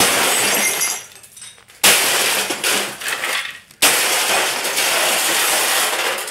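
Glass breaking as an old RCA console television is smashed apart: three sudden crashes about two seconds apart, each followed by a second or two of shattering and tinkling glass.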